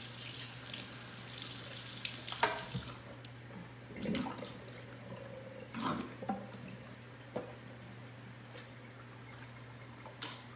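Kitchen faucet running into a stainless steel sink, with water pouring off a pan of rinsed chicken. The tap shuts off about three seconds in, followed by a few short knocks and splashes in the sink over a low steady hum.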